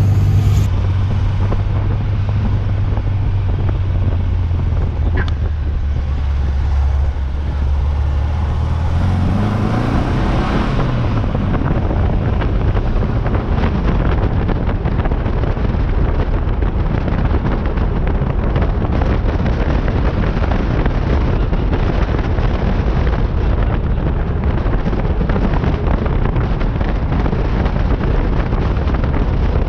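Air-cooled VW Beetle flat-four engine running steadily while driving, heard inside the cabin. About nine seconds in, after a brief rise, the sound gives way to heavy wind and road rush on a camera mounted outside on the car's flank, with the engine underneath.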